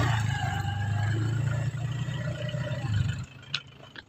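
Small motor scooter engine running steadily at low speed, then stopping suddenly about three seconds in, followed by a faint click.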